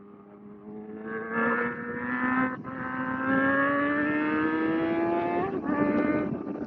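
Kawasaki ZX-4R's 399 cc inline-four engine accelerating hard, its pitch rising steadily through a gear, with an upshift about five and a half seconds in.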